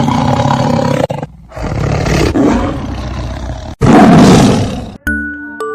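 Three loud, rough roars one after another. Near the end a bright mallet-percussion tune like a glockenspiel begins, one ringing note at a time.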